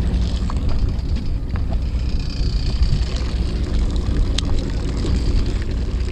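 Fishing boat's engine running steadily, a low hum, with a few light clicks from fishing tackle being handled.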